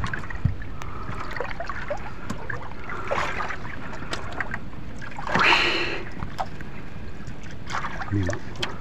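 Sea water sloshing against the hull of a small wooden outrigger canoe as a sailfish is held alongside, with a few light knocks and one louder splash about halfway through.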